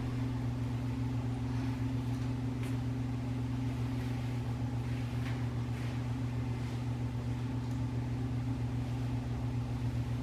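Steady low hum with a few faint, light clicks over it.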